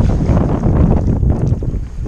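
Wind buffeting the microphone in an uneven low rumble, over water splashing around a kayak on choppy water.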